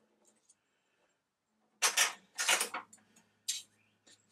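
Small steel parts handled: a lathe tailstock screw assembly and a hex key clink and scrape twice about halfway through, then once more, lightly, near the end.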